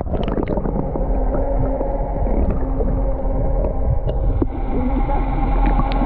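Underwater sound picked up by a submerged camera beside a gray whale: a steady low rumble thick with crackling, and faint wavering tones rising and falling now and then.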